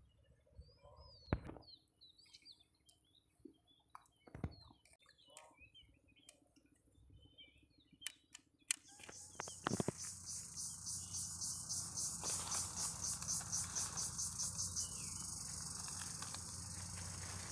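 Outdoor ambience: scattered bird chirps and small clicks, then, about nine seconds in, a sudden high-pitched pulsing insect buzz begins and becomes the loudest sound, beating several times a second.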